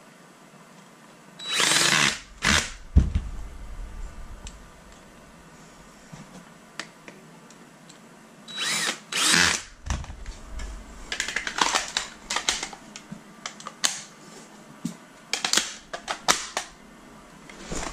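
Cordless drill/driver run in short bursts, twice near the start and twice again about nine seconds in, spinning out screws while a paintball marker is taken apart. These are followed by a run of clicks and knocks from parts being handled.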